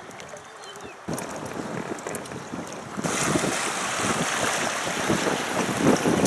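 Wind gusting on the microphone over choppy river water, with the slap and wash of small waves; it steps up suddenly about a second in and grows louder again about three seconds in.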